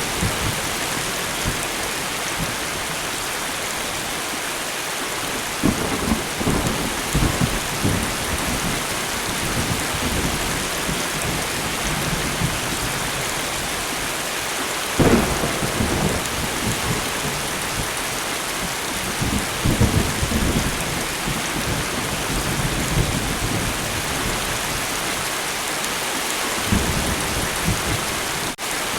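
Steady light rain falling, with thunder rumbling low several times and one sharper thunderclap about halfway through.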